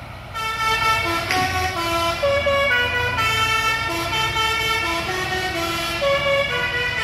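Multi-tone musical air horn (a 'telolet' horn) on a departing bus, playing a tune of stepped notes for several seconds, over the low rumble of its engine.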